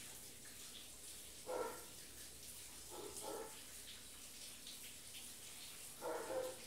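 Faint, steady hiss of falling rain, with three short muffled sounds: about one and a half seconds in, at three seconds, and near the end.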